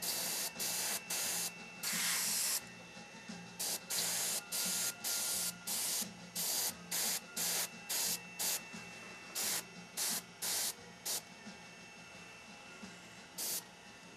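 Airbrush spraying paint onto a wooden snake carving in many short trigger bursts of hiss, one longer pass about two seconds in, the bursts thinning out near the end.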